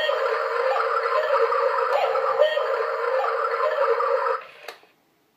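Cuckoo clock's hourly sound effect played through its small built-in speaker. It is meant to be a relaxing woodland scene with a bubbling brook but comes out as a haunting, distorted hissing wash with small blips. It stops abruptly about four and a half seconds in, followed by a single click.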